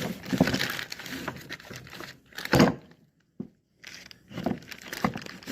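Rustling and scraping handling noise close to the microphone, with a few knocks, the loudest about two and a half seconds in. The sound drops out briefly just after the middle.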